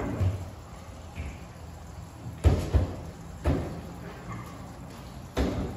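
Several dull knocks and thumps at irregular intervals, the loudest a pair about two and a half seconds in, with another about a second later and one near the end.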